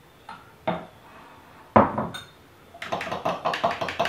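A glass measuring cup set down on the counter with one loud knock about two seconds in, then a metal spoon stirring in a ceramic mug, clinking quickly and evenly against its sides, about six clinks a second.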